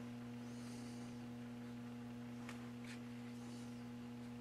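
Faint, steady electrical mains hum, with two soft, brief handling sounds about two and a half seconds in.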